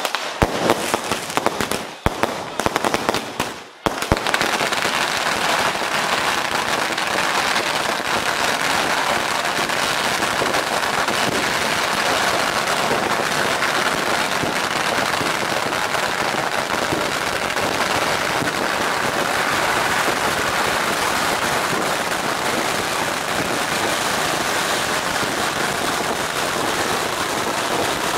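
Strings of firecrackers going off. A few separate bursts come first, then about four seconds in they merge into one unbroken, rapid crackle of bangs.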